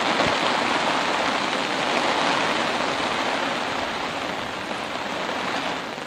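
Steady rushing hiss like rain falling on a surface, a little louder about two seconds in and easing near the end.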